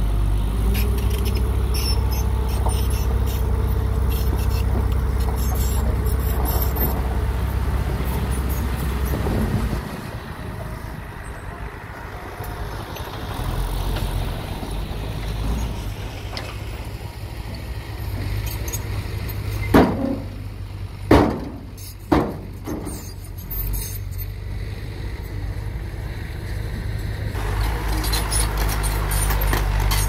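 Loaded dump truck's diesel engine running loud as the hydraulic hoist tips the bed, then dropping to a quieter run about ten seconds in. Three sharp bangs come a little after twenty seconds, and near the end a louder steady engine sound takes over.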